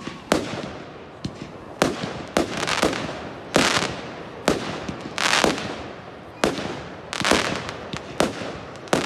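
Aerial fireworks bursting in a rapid series of sharp bangs, roughly one a second, each trailing off in an echo.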